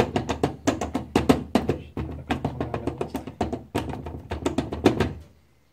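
Background music with a fast run of sharp percussive hits over a steady bass note; it stops about five seconds in.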